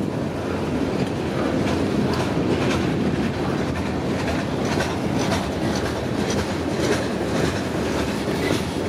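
Freight cars rolling past close by, with a steady rumble and the wheels clicking over rail joints.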